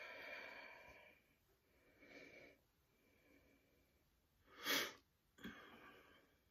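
Near silence with a few short, soft noises from a person handling a jersey t-shirt scarf close to the microphone. The loudest is a sharp, sniff-like breath a little past halfway, and a weaker one follows soon after.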